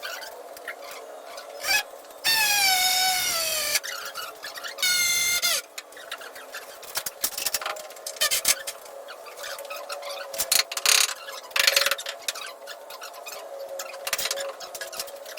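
Sped-up sound of timber construction work: a fast clatter of clicks and knocks, with two high whines that fall in pitch, the first lasting about a second and a half, like a power screwdriver driving screws, pitched up by the speed-up.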